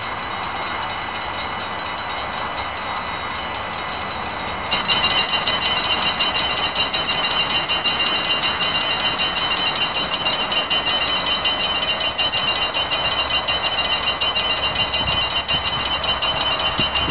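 Dutch level crossing warning bells start ringing about five seconds in, a fast, steady ringing at a high pitch, over a steady high whine that is there from the start.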